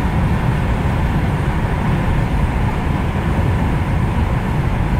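Steady low rumble of road and engine noise inside a car's cabin while driving at freeway speed.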